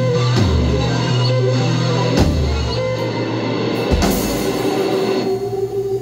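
Live rock band with keyboards, electric guitar and drum kit playing the closing bars of a song: held low bass notes and drum hits, with a last crash about four seconds in that rings out as the song ends.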